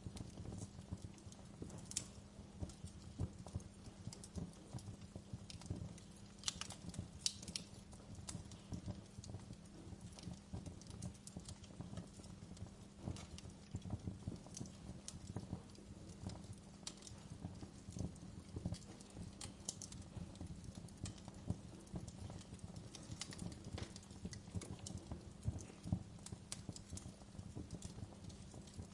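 Wood fire crackling, with irregular small pops over a steady low rumble; a few louder pops stand out, one about two seconds in and a pair a few seconds later.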